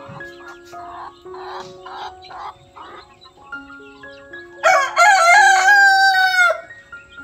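A rooster crows once, loud, for about two seconds starting just past the middle, over background music of soft sustained melodic notes.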